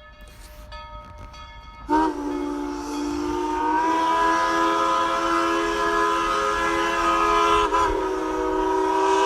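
Steam locomotive's chime whistle blowing one long blast. It starts about two seconds in, rises a little in pitch as the valve opens, and holds, with a brief dip near the end. Fainter broken whistle tones come before it.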